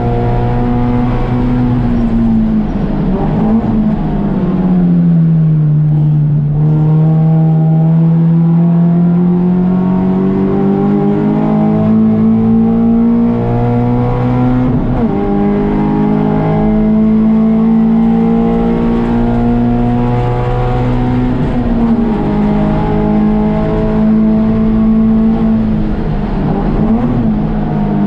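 A Touring 4 class race car's engine running hard on a road-course lap. Its pitch falls as the car slows for a corner, bottoms out about five to seven seconds in, then climbs steadily for several seconds, with smaller drops and rises after that.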